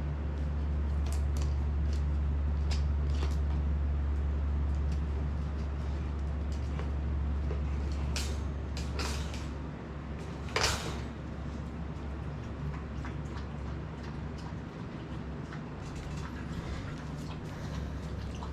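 Hard plastic treat-dispensing ball toy being pushed and rolled across the floor by a dog: a low rolling rumble for about the first ten seconds, scattered clicks throughout, and one louder knock about ten seconds in.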